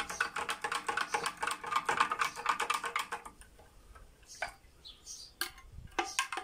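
Metal spoon clinking and tapping against the inside of a glass jar while salt is stirred into water for brine. The clinks come fast for about three seconds, then thin out to a few scattered taps before quickening again near the end.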